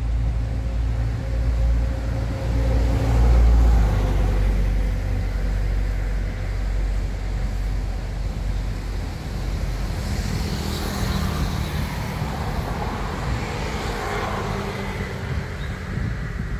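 Road traffic passing close by: a steady low engine and road rumble, loudest about three to four seconds in, with a wider hiss of passing vehicles later on.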